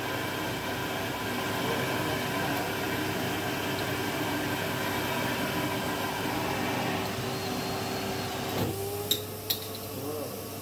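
Vacuum motor drawing air through a vacuum-forming table: a steady rushing noise with a motor hum. About eight and a half seconds in, the rush drops away and the hum rises slightly in pitch, as the heated plastic sheet seals over the mould and blocks the airflow, followed by two sharp knocks.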